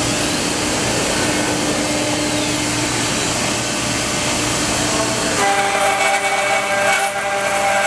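ShopBot CNC router running its spindle with the dust collector drawing through the hose while it joints the edge of a wood slab: a steady loud hiss. About five seconds in it changes to a whine with several steady pitches over the hiss.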